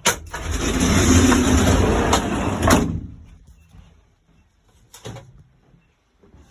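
A vehicle's sliding door rolling along its track for about three seconds with a rumble and rattle, ending in a clunk; one more knock follows about five seconds in.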